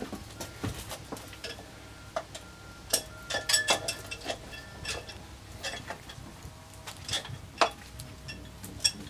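Irregular metallic clinks and taps, a few of them ringing briefly, from engine parts and tools being handled while pistons and barrels are fitted to a Citroën 2CV flat-twin engine.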